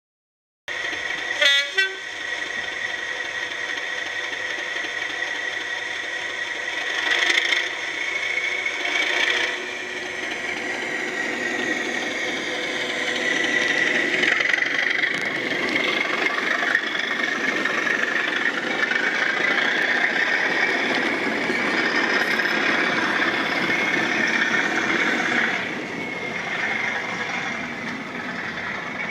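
Model railway locomotive sound: a diesel-type engine running steadily with held, slowly shifting tones, and two short loud sounds about a second and a half in that fit horn toots.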